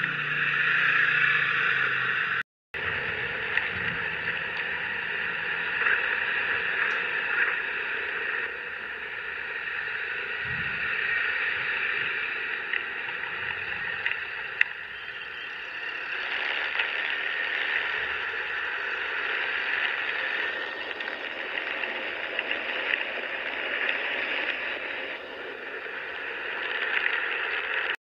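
Steady rushing wind and road noise on the camera's microphone while riding a motor scooter through traffic, cutting out briefly about two and a half seconds in.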